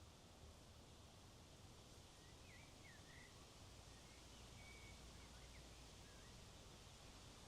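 Faint steady wind noise, with a few short bird chirps from about two to six seconds in.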